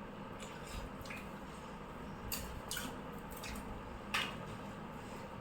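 Faint eating sounds while eating noodles: scattered small wet smacks and clicks over a low steady background, the loudest a sharp click about four seconds in.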